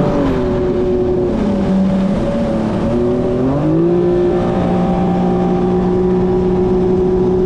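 Yamaha Superjet stand-up jet ski engine running under way. The pitch drops about a second in as the throttle eases, rises again around the middle, then holds steady.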